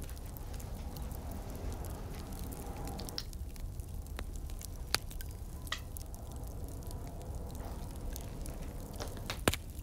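Wet squishing of hands spreading massage oil over skin, with a few scattered sharp crackles from a fire.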